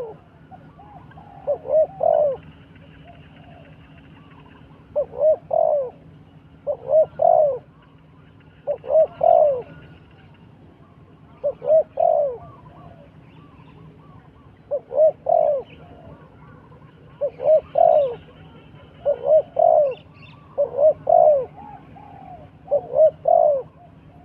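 Dove cooing over and over, each phrase a quick run of two or three notes, repeated about every two seconds. Faint bird chirping in the background.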